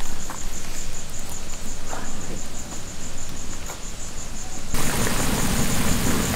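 Crickets chirping in a steady pulsing trill, with a few faint ticks. About five seconds in, a louder low bubbling rumble comes in: the spiced water in a large pot on a wood fire coming to the boil.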